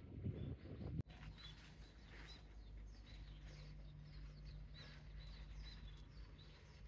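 Faint outdoor ambience: small birds chirping with short high chirps every half second or so, over a low steady hum. It follows a brief rustling noise that cuts off abruptly about a second in.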